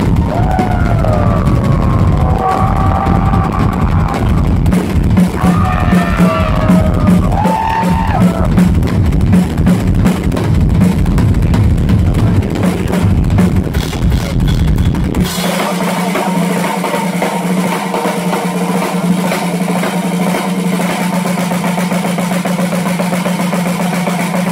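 A live rock drum solo on an amplified ddrum kit, loud and fast, with rapid rolls and pounding bass drum, captured on a phone. About two thirds of the way in the deep bass thud drops away suddenly and a steady held tone carries on.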